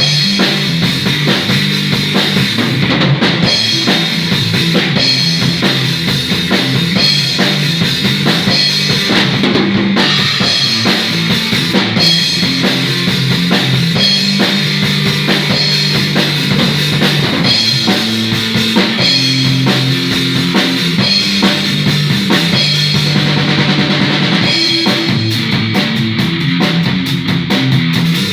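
A live music jam: a drum kit keeps a steady beat under held low notes that change pitch every second or so.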